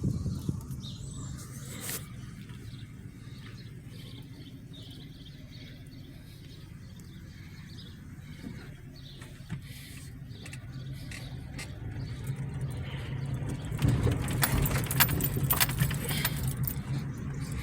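Car running at low speed, a steady low hum of engine and road noise that grows louder near the end, with birds chirping faintly.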